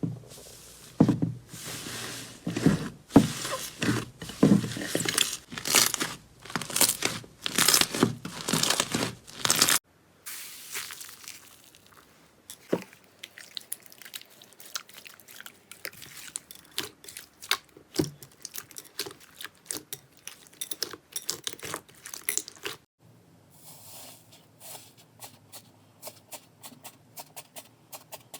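Slime being squeezed and pressed by hand, making crackling, crunching and popping sounds. Dense and loud for about the first ten seconds, then sparser crackles, and fainter scattered clicks in the last few seconds.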